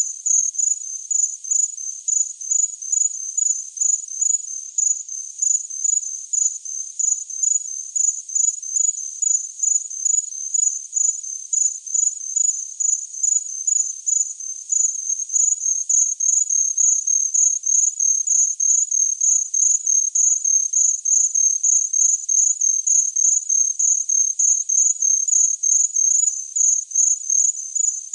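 A cricket chirping steadily in high-pitched, evenly spaced chirps.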